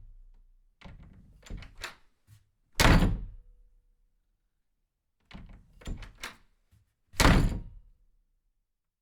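Two rounds of a few light clicks and knocks, each followed by a heavy thud, like a door being worked and shut.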